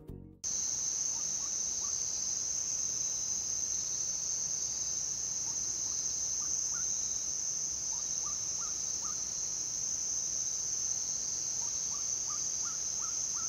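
A steady, high-pitched insect chorus that starts abruptly about half a second in, with faint short chirping calls scattered over it, coming in small clusters.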